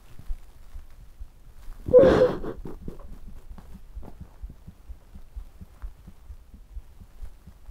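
A person crying: one loud sobbing breath about two seconds in, then quieter breathing with soft low thumps.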